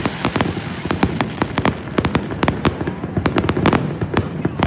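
Fireworks going off in a rapid, irregular run of sharp bangs and pops, several a second, over a steady crackle.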